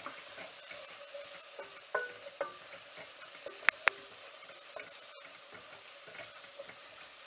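Chopped mixed vegetables sizzling as they fry in two saucepans while they are stirred with a silicone spatula and spoon, a steady hiss. There are a couple of light knocks about two seconds in, and two sharp clicks in quick succession just before four seconds, the loudest sounds.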